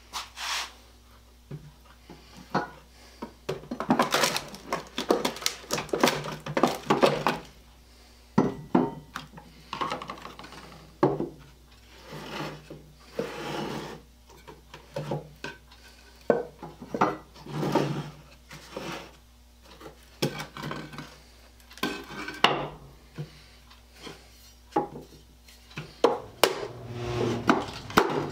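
Boards of an old wooden birdhouse being handled and worked apart on a wooden workbench: an irregular series of wood knocks, clacks and short scraping sounds with pauses between them.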